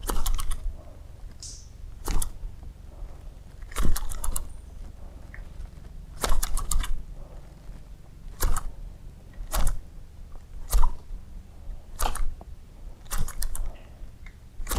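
KV Papa Todos floating topwater lure twitched across the water surface, making a short sharp pop-and-splash at each jerk of the rod, one every second or two. This is the noise meant to draw fish.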